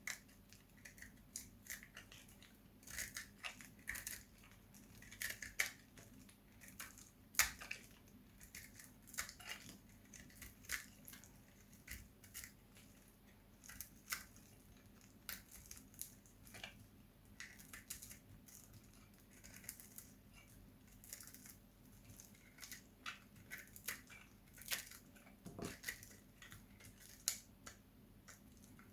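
Dry bar soap being cut with a blade: an irregular run of small crisp crunches and clicks, several a second, as the blade bites through the soap.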